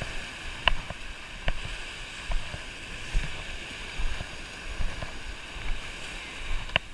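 Shallow surf washing up the beach as a steady rush. Soft low thumps come at a walking pace, about one every 0.8 s, with a sharp click about a second in and another near the end.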